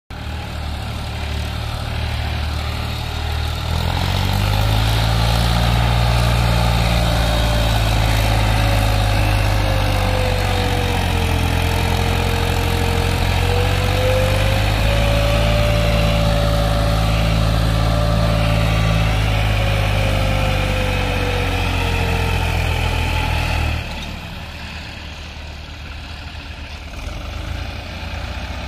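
New Holland 3630 Super tractor's diesel engine running under load while towing a disc harrow through soil. It steps up in loudness about four seconds in, holds steady, then drops off sharply near the end.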